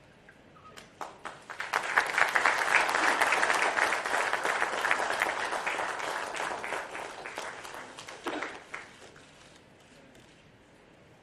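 Audience applauding: the clapping starts about a second in, builds quickly to a full round, then thins out and dies away about nine seconds in.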